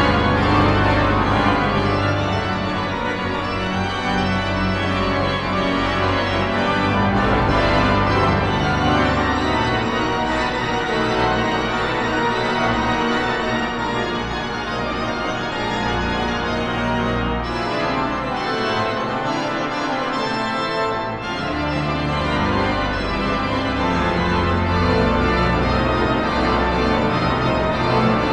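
Large three-manual pipe organ playing sustained, dense chords on the manuals over pedal bass notes. The deep pedal bass drops away for several seconds midway, then comes back in.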